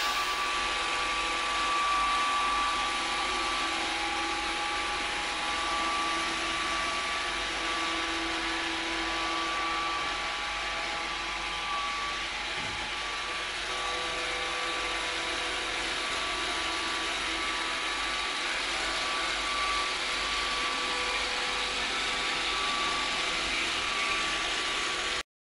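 iRobot Roomba 580 robot vacuum running across a parquet floor: a steady whir from its vacuum motor and brushes, with a few steady whining tones over it.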